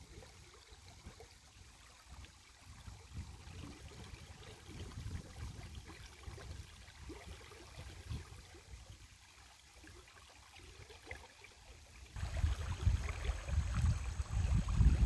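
Faint flowing water of a shallow river. About twelve seconds in, a much louder, uneven low rumble of wind on the microphone sets in.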